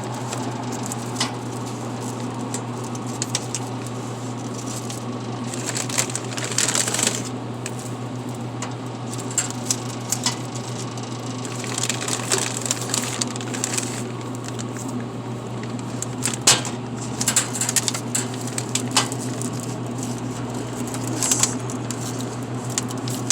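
Drink bottles being loaded into the columns of a vending machine: irregular knocks, clatters and rustling, over a steady low hum.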